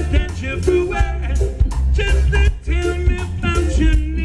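Live ska band playing through a PA: singing over a heavy bass line, drums and guitars.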